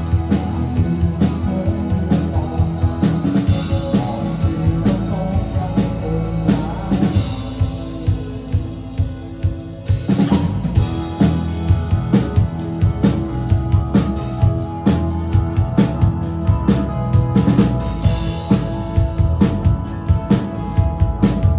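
Live indie rock band playing an instrumental passage: electric guitars and bass guitar over a drum kit with kick and snare. About ten seconds in, after a sparser stretch of held notes, the whole band hits together and the drums pick up a steady, busier beat.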